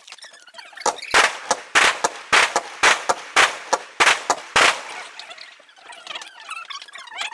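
Aerial fireworks bursting in rapid succession: about a dozen sharp bangs a few tenths of a second apart, starting about a second in and stopping after roughly four seconds.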